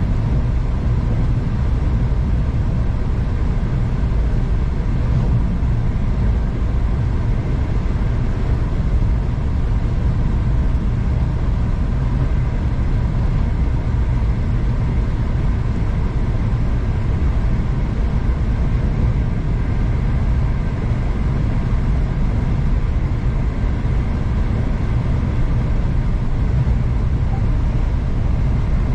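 V/Line passenger train running steadily along the track, heard from inside the carriage as a continuous low rumble of wheels and running gear with faint steady whines above it.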